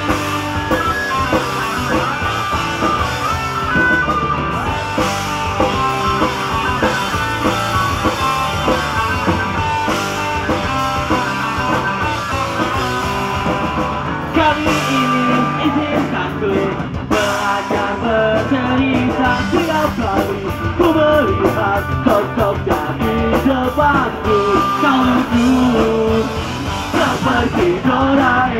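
Live pop punk band playing: distorted electric guitars, bass and a drum kit, with singing over them.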